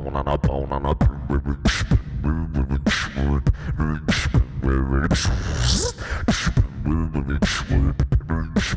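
Beatboxing into a handheld microphone: a steady rhythm of vocal kick-drum and snare clicks, with hissing hi-hat sounds and pitched hummed tones in between.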